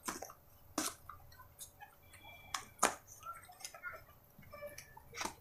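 Cardboard ink-bottle box being handled and opened by hand: a handful of quiet, sharp clicks and scrapes spread over a few seconds.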